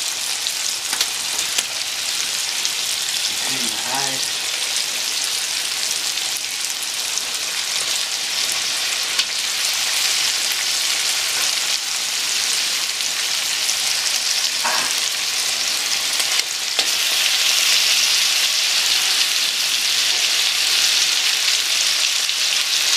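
Seasoned duck pieces sizzling in hot curry oil as more meat goes into the pan, a steady hiss that gets louder about 17 seconds in.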